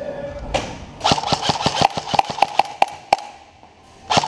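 Airsoft gun fire: a rapid string of shots lasting about two seconds, then a single shot, then another quick burst near the end.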